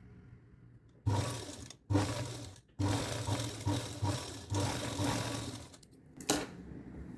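Electric sewing machine stitching in short runs. It starts about a second in, stops briefly twice, runs for about three seconds, then gives one short burst near the end.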